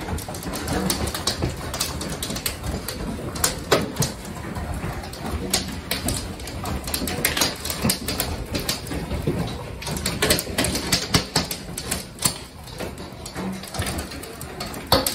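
Large hailstones pelting the house and a cracked window pane: dense, irregular sharp knocks, several a second, over the steady din of the storm. The damaged pane is close to giving way under a few more hits.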